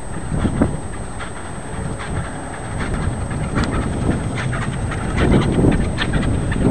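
Chairlift haul rope and chair grip clattering over a lift tower's sheave wheels as the chair passes: a run of uneven clicks and clacks over low wind rumble on the microphone, growing louder in the second half.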